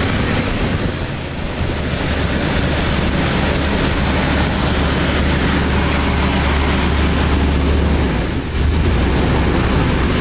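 1981 Chevrolet Malibu Classic engine running at an idle that is set too high, a steady low hum under an even rushing noise. About eight seconds in the sound briefly dips and then picks up again.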